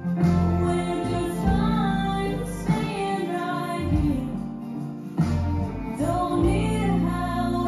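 Song with a woman singing over a bass line, played as the music for a line dance.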